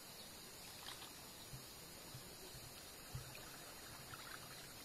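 Faint steady rush of flowing river water, with a couple of soft low thumps, the strongest about three seconds in.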